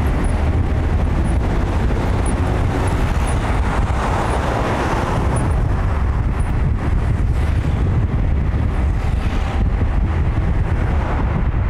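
Steady road noise of a moving vehicle heard from on board: a constant low rumble of engine and tyres with a wash of wind and traffic noise.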